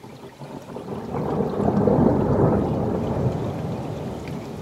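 Thunder from a cloud-to-ground lightning strike a few seconds earlier: a low rumble that swells over about two seconds, then slowly fades.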